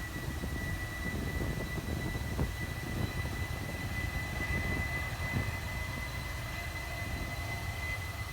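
Four jet engines of a Boeing 747-400 freighter at takeoff power: a deep, steady rumble with a thin, steady high whine.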